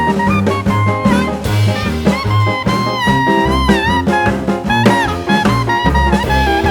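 Jazzy brass-led swing music with drum kit and a pulsing bass line, the melody bending in pitch; this is the fountain show's music, heard loud and steady.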